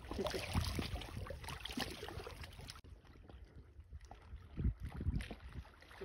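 Small waves lapping at the river's edge over a low rumble, with two dull thumps near the end. The higher hiss cuts out suddenly about three seconds in.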